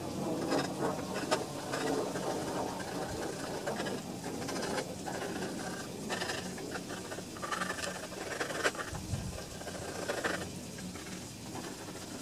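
Light rustling and scraping with scattered small clicks, from hands and a rag working over the garden tractor's frame and engine.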